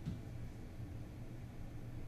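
Pet grooming dryer blowing air through a hose nozzle: a steady low rumble with a faint hiss above it, and one brief click just after the start.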